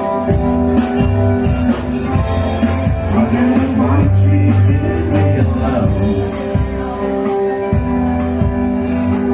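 Live band playing rock music, with guitar and drums.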